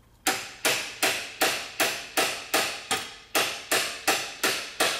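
Hammer striking a length of 1/4-inch square stock used as a punch, driving the pin out of the gearshift linkage. About a dozen sharp blows, evenly paced at roughly two and a half a second, each ringing briefly before the next.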